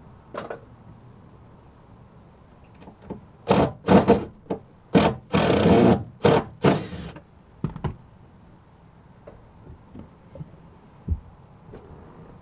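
Cordless drill-driver backing screws out of a wooden subwoofer enclosure, run in a series of short bursts in the middle, followed by a few light clicks and a thump.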